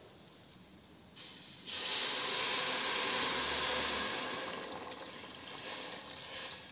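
Hot chicken broth poured from a jug into a stainless steel pot of sautéed grated carrots. The pour starts about a second and a half in, is loudest for about three seconds, then eases off.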